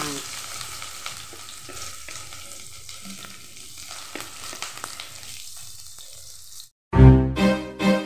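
Sliced onions sizzling steadily in hot oil in an aluminium kadai. Near the end the sizzle cuts off and loud background music with distinct notes begins.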